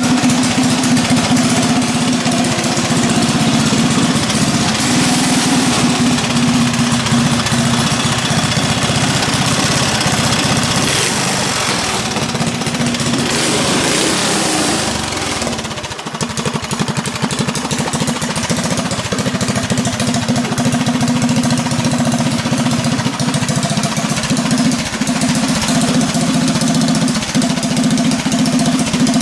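Freshly rebuilt Briggs & Stratton 5 hp single-cylinder flathead engine with an exhaust header, running on its first test fire after the rebuild. Its note changes about halfway through, with more hiss for a few seconds and a brief dip in level, then it settles back to a steady run.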